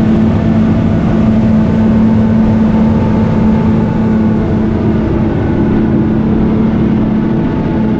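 Outboard engines of a center-console fishing boat running steadily at cruising speed, a constant drone with water rushing along the hull and wind.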